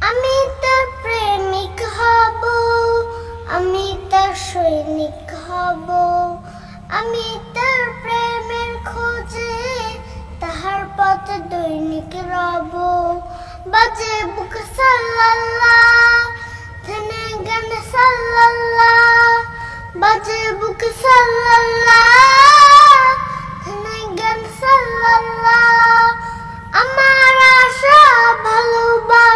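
A boy singing a Bengali Islamic gojol (devotional song) solo, in sustained melodic phrases of a few seconds each, over a low steady hum.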